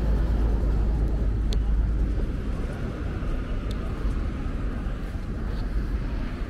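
Outdoor city ambience: a steady low rumble of traffic and open air that eases slightly after about two seconds, with a couple of faint high ticks.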